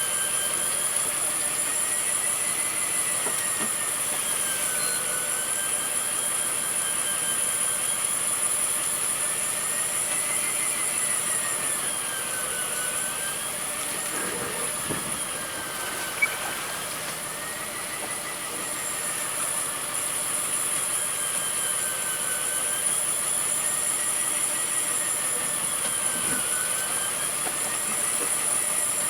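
Steady machinery noise aboard a fishing boat: a whine that swings slowly up and down in pitch every few seconds over a constant high hiss.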